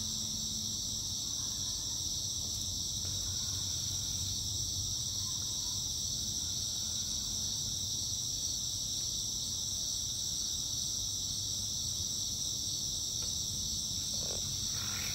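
Steady, unbroken chorus of night insects, crickets, shrilling continuously, with a faint low hum underneath.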